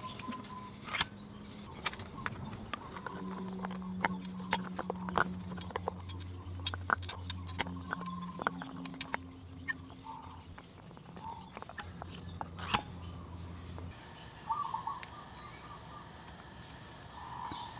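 Irregular light metallic clicks, taps and clinks of hand tools being worked on scooter parts, over a low hum that stops about three-quarters of the way in.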